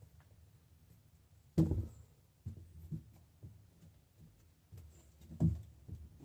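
A few dull knocks and bumps at irregular intervals, the loudest about a second and a half in and again near the end.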